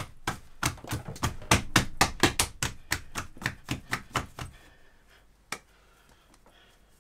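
Hands working in a plastic mixing bowl, making quick, regular taps about five a second that fade away after about four and a half seconds, then a single click.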